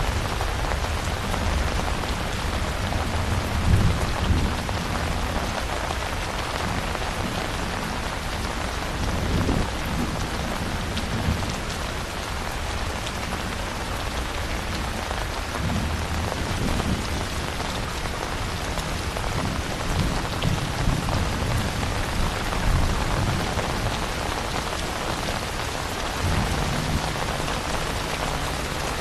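Steady, dense rainfall with low rolls of thunder that swell and fade several times.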